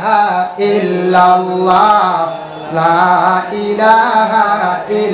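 A man's voice singing a wavering, drawn-out Islamic devotional chant into a microphone, in phrases of about a second with a short break about halfway through.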